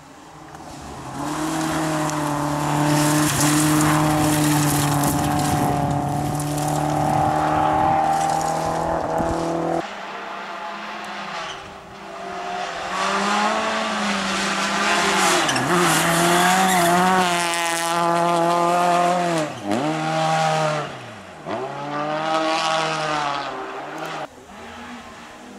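Rally cars driven hard on a gravel stage. First one engine holds a steady high note for about ten seconds. Then, after a sudden change, a second car's engine climbs and falls again and again through gear changes, with sharp drops in pitch, and fades away near the end.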